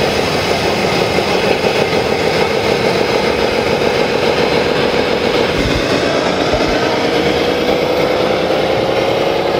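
Radio-controlled scale truck running, its engine sound steady, with a whine that rises slowly in pitch in the second half.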